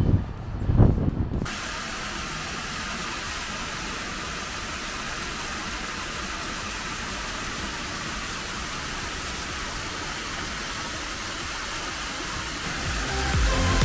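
Background music with a beat cuts off about a second and a half in, leaving a steady rushing hiss of outdoor noise. Music comes back in near the end.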